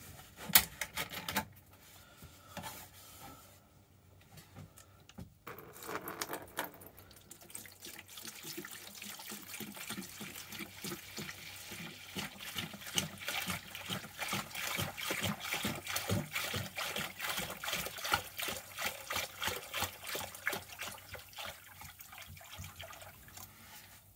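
White vinegar being poured in a steady stream from a plastic jug into a plastic tub, splashing over the metal parts, starting a few seconds in and tailing off near the end. A few clicks come first.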